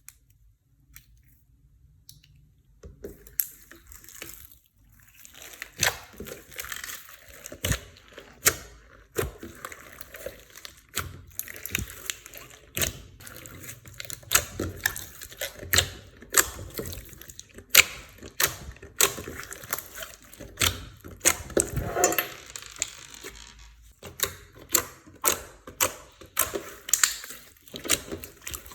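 Clear slime being kneaded and pressed by hand, making wet, sticky clicks and pops at an irregular pace. It starts about three seconds in.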